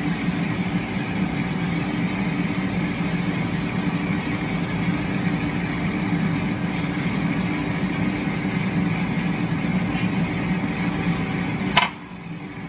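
A steady mechanical hum with a hiss over it, which cuts off suddenly with a click near the end.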